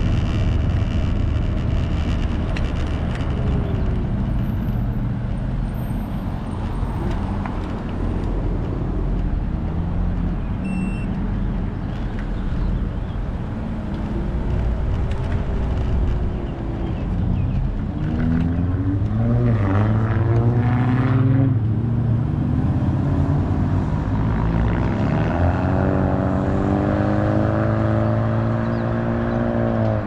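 Road traffic on a city street: a steady low rumble of passing cars, with engines speeding up and pulling away about two-thirds through and again near the end.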